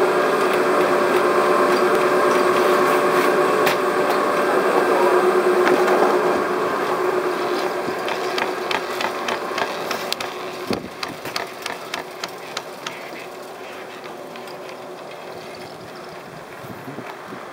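Chairlift bottom-station machinery running with a steady multi-tone hum that fades as the chair climbs away. From about eight seconds in comes a run of quick clicks as the chair's cable passes over the rollers of a lift tower, then only a faint steady rush.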